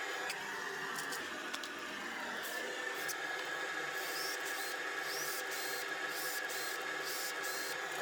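Shop vacuum running steadily with a constant whine. The whine shifts in pitch for a moment about a second in, then settles again. A few sharp clicks come early, and short high-pitched bursts follow in the second half.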